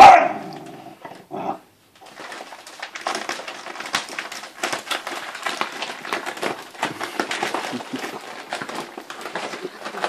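A Grand Basset Griffon Vendéen puppy gives a loud yelp at the start and a shorter one about a second later. After that, an empty plastic kibble bag crinkles and rustles steadily as the puppies tug and scrabble at it.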